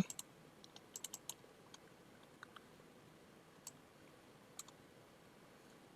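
Faint, scattered clicks of a computer mouse and keyboard: a quick cluster in the first second and a half, then a few single clicks.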